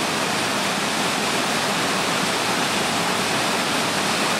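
Shallow stream rushing over rock slabs and small cascades: a steady, even rush of water.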